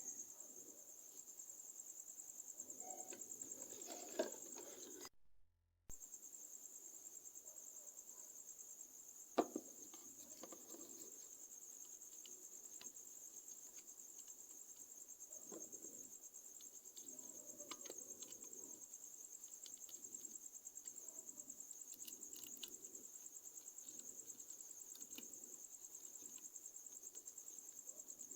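Crickets trilling steadily and faintly in the background in one continuous high-pitched pulsing drone, which drops out for about a second around five seconds in. A couple of sharp clicks sound over it, one just before the dropout and one a few seconds after.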